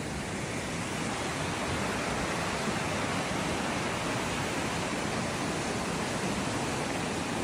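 Steady rush of fast, high water in a swollen forest stream running over rocks, with no break or change.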